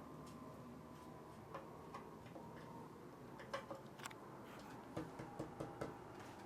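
Scattered small clicks and ticks of a screwdriver tightening loose screws on an antique Emerson ceiling fan, coming more often in the second half, over a faint steady hum. The screws were likely loosened when a blade was bent, and are the suspected cause of the fan's rattle.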